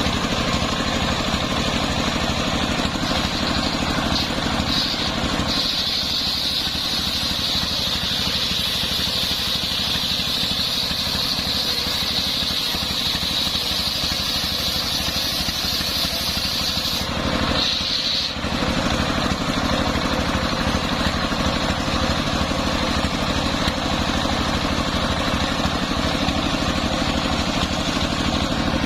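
The engine driving a homemade circular sawmill runs steadily. From about five seconds in until about eighteen seconds, a high whine sits over it, with a short break near seventeen seconds.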